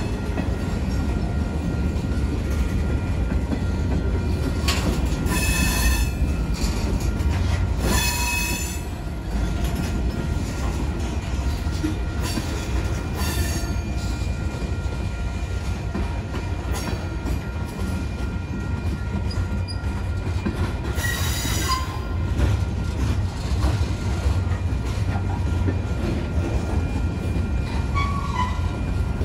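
Freight train of tank cars and covered hoppers rolling past close by: a steady low rumble of steel wheels on rail, broken several times by brief high-pitched wheel squeals.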